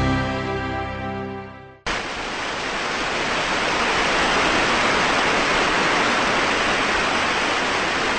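Intro music fades out over the first two seconds, then the steady rush of Niagara Falls cuts in suddenly and carries on evenly.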